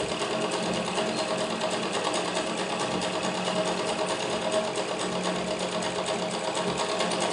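Overlock (interlock) sewing machine running steadily with a fast, even clatter as it overlocks the edge of a handkerchief.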